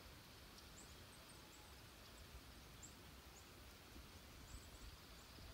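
Near silence: still outdoor air with a faint hiss, and a few faint, short high chirps scattered through.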